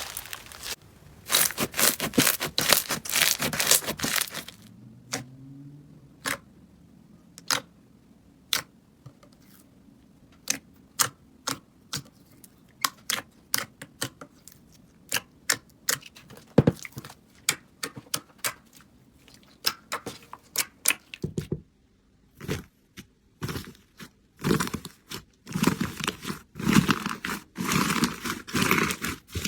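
Slime being pressed and worked by hand, with close crackling and crinkling: dense for the first few seconds, then a long run of separate sharp pops and clicks, then dense crackling again near the end.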